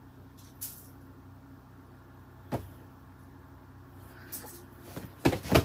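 Low steady hum with a few sharp knocks: single ones about half a second in and two and a half seconds in, then several louder thumps in quick succession near the end.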